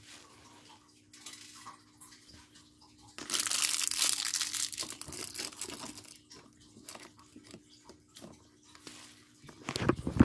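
A thin plastic parts bag crinkling as it is handled and crumpled, loudest for about three seconds a few seconds in, then softer rustles and taps against the cardboard calendar. A faint steady hum sits underneath, and loud handling bumps come right at the end.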